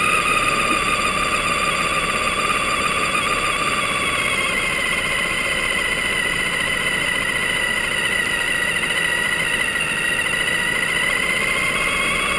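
Small electric drive motor of a ground-level FPV camera vehicle whining as it rolls over pavement, over a steady rolling hiss. The whine sinks in pitch over the first few seconds and climbs again near the end.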